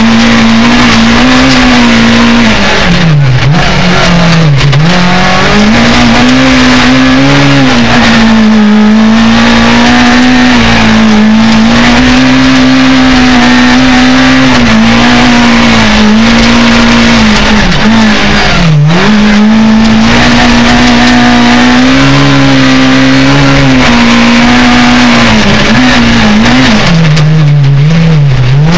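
Rally car engine, heard inside the cabin, running hard at high revs along a stage. It holds a mostly steady note, with the revs dipping briefly and climbing back a few seconds in, about two-thirds of the way through and near the end, as the driver lifts or shifts.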